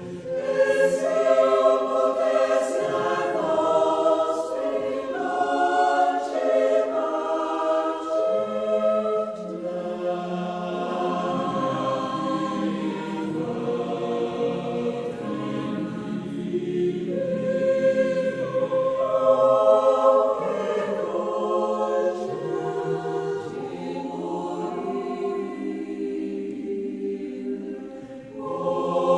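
Choir singing without accompaniment, several voices holding sustained chords that change every second or two, with a brief drop in loudness near the end.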